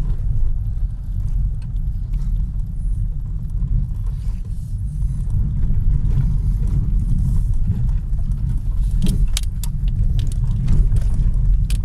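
Car driving on a gravel road, heard from inside the cabin: a steady low rumble of tyres and engine, with scattered clicks and rattles and a few sharper clicks about nine seconds in and near the end.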